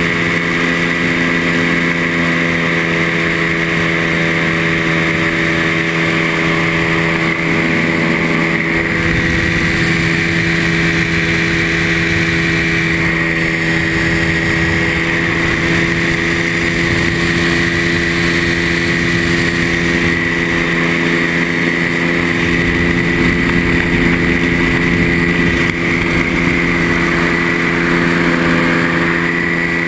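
Microlight trike's engine and pusher propeller running at a steady cruise note in flight, with wind rushing over the open cockpit.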